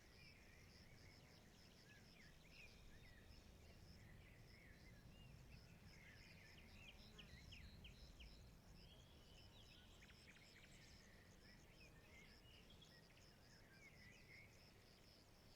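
Faint forest ambience: scattered birdsong chirps and trills over a steady, high, pulsing insect trill.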